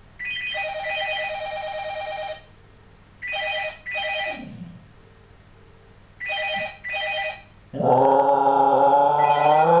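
Telephone ringing: one long trilling ring, then two pairs of short rings. About 8 seconds in, a Scottish Terrier starts howling at the ringing phone. The howl is long, loud and rises slightly in pitch, and it is louder than the phone.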